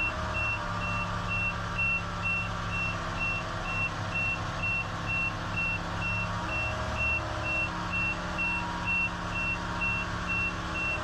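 Telescopic handler's diesel engine running under load while its warning alarm beeps steadily, one high tone about twice a second. The engine note dips briefly about half a second in and again around six to seven seconds in.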